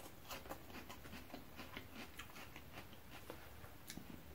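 Faint chewing of pad thai noodles: soft, irregular wet mouth clicks.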